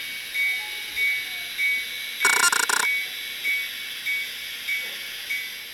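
Soundtraxx Tsunami decoder's recorded EMD 645 diesel prime mover played through a tiny model-train speaker: a thin, hissy, rhythmic throb pulsing a little under twice a second. A short horn blast sounds about two seconds in.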